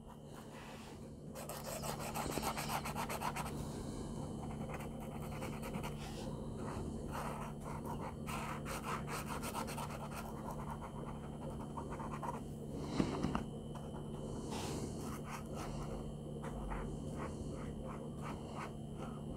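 Acrylic paint pen nib scrubbing back and forth on sketchbook paper as a red swatch is filled in, in quick repeated strokes over a steady low hum, with one brief knock about two-thirds of the way through.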